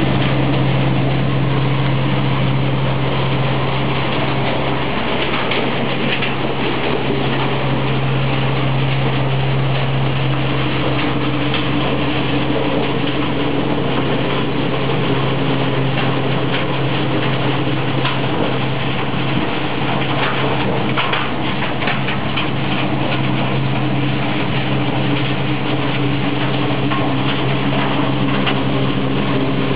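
Hay blower running steadily, conveying second-cut hay through the duct into a telescopic distributor: a constant low machine hum over a rush of air and hay, with scattered light ticks.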